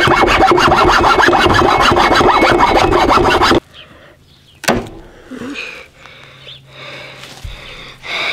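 Hand saw cutting through a basswood block in rapid back-and-forth strokes that stop abruptly about three and a half seconds in. A single sharp knock follows about a second later.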